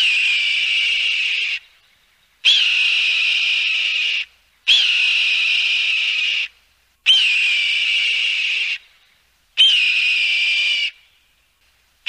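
Eagle calling: five long calls in a row, one about every two and a half seconds, each opening with a quick upward flick and then held on one high pitch before cutting off, with a sixth starting at the end.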